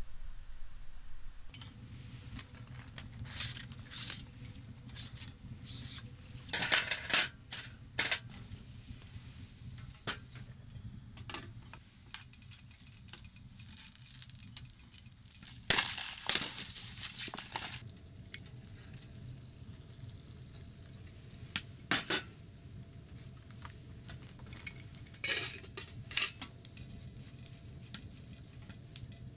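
Metal utensils clinking and scraping against a small frying pan and metal tray as sausages are cut and cooked, with scattered sharp clatters over a steady low hum.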